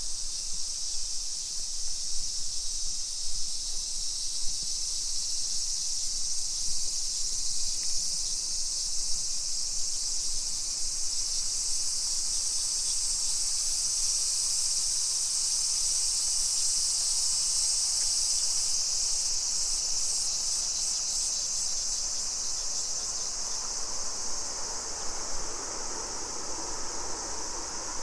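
Cicadas shrilling in a dense, steady, high-pitched chorus. A lower, broader background noise rises underneath near the end.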